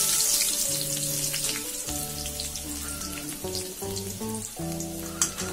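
Chopped shallots sizzling as they are dropped into hot coconut oil in a pan, the frying starting suddenly, loudest at the start and easing off, with scattered pops.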